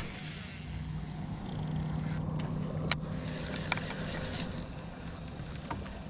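A steady low motor hum, with a few light clicks from a baitcasting reel being cranked to retrieve the lure.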